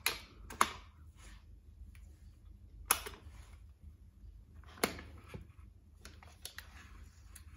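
Several sharp, separate plastic clicks and knocks: a three-pin charger plug pushed into a GM extension board's socket and the board's switch clicked on, then the charger cable handled.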